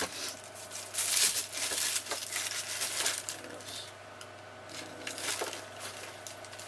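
Plastic rustling and crinkling as lengths of heat shrink tubing are rummaged through and handled. The bursts are loudest about one to three seconds in and quieter after that.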